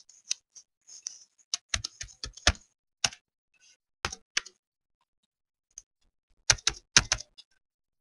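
Computer keyboard typing: quick keystroke clicks in a few short bursts, with pauses between them.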